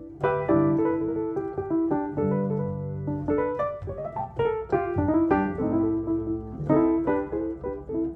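Background music played on piano: a steady run of notes over held low notes.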